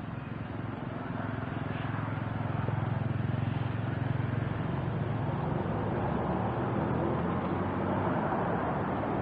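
A steady low rumble with a hum, like a motor running, growing louder over the first few seconds and then holding.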